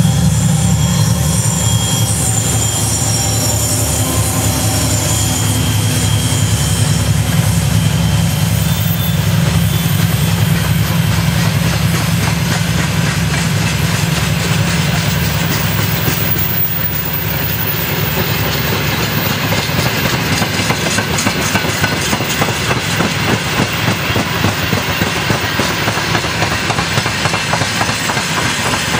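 2TE10U diesel locomotive running on the move, its 10D100M two-stroke opposed-piston diesel engines giving a strong, steady low throb, with train wheels clacking over rail joints.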